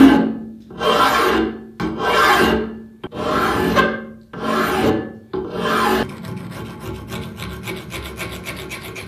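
Hand files rasping on the metal frame of a metal shear: a flat file worked in long, even strokes, about one a second. About six seconds in, this gives way to a round file in the frame's curved throat, in quick, short, quieter strokes.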